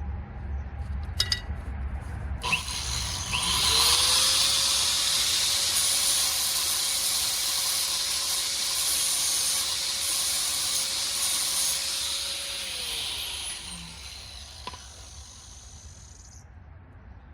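A hand-held power tool running for about fourteen seconds: a harsh hiss starts suddenly, the motor spins up to a steady hum, then winds down before the hiss cuts off near the end.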